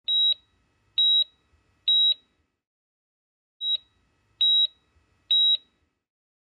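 High-pitched electronic beeps in the style of a hospital heart monitor. Six short beeps come in two runs of three, about a second apart, with a pause near the middle.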